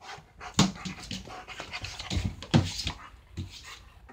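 German shepherd panting and huffing at close range, with its muzzle pressed against a cat; two loud, sharp breaths stand out, about half a second and two and a half seconds in.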